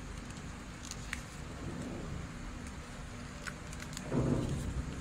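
A sheet of origami paper rustling and crackling as it is creased by hand, with faint small clicks over a steady background hiss. About four seconds in there is a louder rustle as the sheet is opened out.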